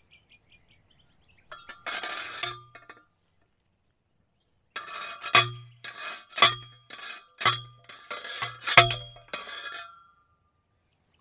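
A hand post driver hammering a steel fence post into the ground: about five ringing metal-on-metal clanks roughly a second apart, after a brief rattling clatter as the driver goes onto the post.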